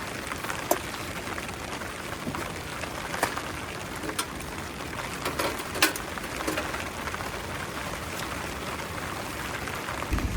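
Heavy rain falling steadily on a tent, a constant hiss heard from inside, with a few light knocks and clicks scattered through it.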